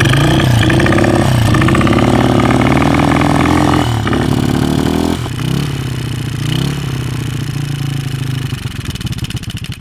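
Pit bike engine running and being revved up and down several times, loudest in the first half. It is hard-starting and not running right at about 7,000 ft elevation.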